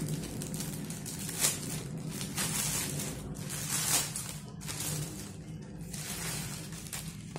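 Plastic packaging crinkling and rustling in irregular bursts as clothes are unwrapped and handled, loudest about a second and a half in and again about four seconds in.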